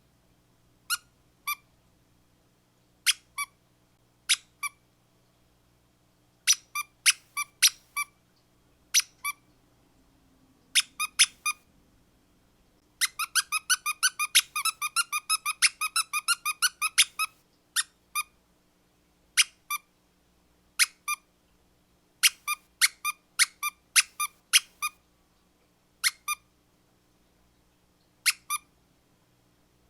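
Squeaky dog toy being squeezed over and over: short squeaks singly, in pairs and in quick clusters with pauses between. About halfway through comes a fast run of roughly twenty squeaks in about four seconds.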